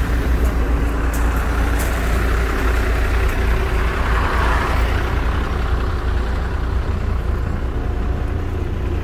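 Heavy truck's diesel engine running steadily with a deep, even rumble, likely the crane truck working at the roadworks.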